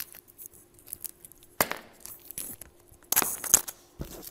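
Paper being handled on a tabletop: scattered rustles and small clicks, with a louder burst of crinkling about three seconds in.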